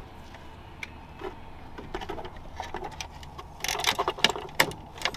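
Light plastic clicks and knocks of a 2013 Nissan 370Z fuel pump assembly being tilted and worked down through the fuel tank opening. The taps are sparse at first and come thick and fast after about three and a half seconds, as the pump is levelled to fit.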